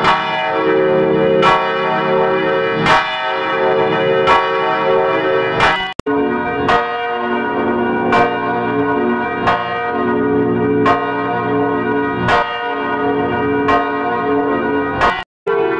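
Church bells ringing, with a strike about every second and a half over the long, overlapping ring of several bells. The sound drops out abruptly about six seconds in and again near the end, and after the first break the bells come back with a different set of tones.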